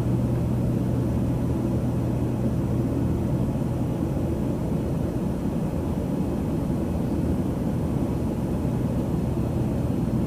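Steady cabin noise of an airplane in flight: an even rumble of engines and airflow with a constant low hum, unchanging throughout.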